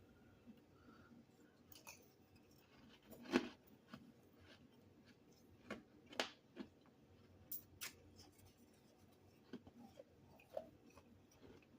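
Mouth chewing chunks of freezer frost: scattered sharp crunches, the loudest about three and a half seconds in, then a few more around six and eight seconds.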